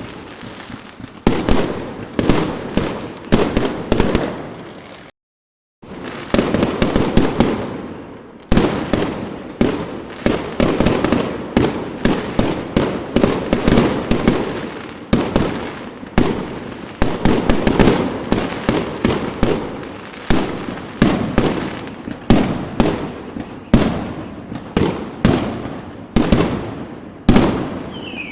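Fireworks going off in rapid succession: loud, sharp bangs about two a second with crackling in between, broken by a half-second silence about five seconds in.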